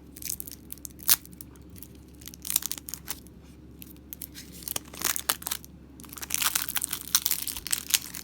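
Plastic wrapping torn and crinkled by hand while card decks are unwrapped: scattered crackles and rustles, thickening into a busy stretch in the last couple of seconds.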